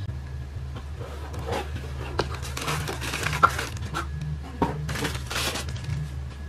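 Tissue-paper wrapping crinkling and rustling as it is pulled off a metal tablet stand and out of its cardboard box, with a few light clicks and knocks from the stand and box; the sharpest click comes about three and a half seconds in.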